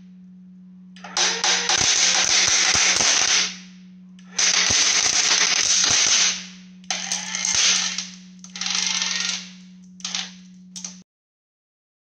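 Electric linear actuator's motor whirring in repeated bursts, the first two about two seconds long and the rest shorter, as it drives down into two stacked wooden boards under about 4100 N of thrust. Sharp cracks of the splintering wood come during the first bursts, and a steady low hum runs underneath. Everything cuts off suddenly about a second before the end.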